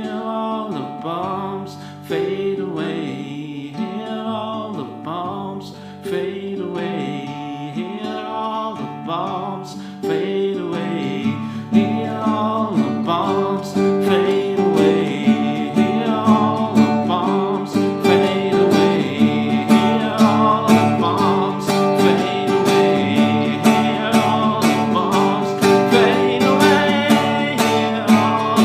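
Acoustic guitar strummed in a steady rhythm, getting louder and busier about ten seconds in.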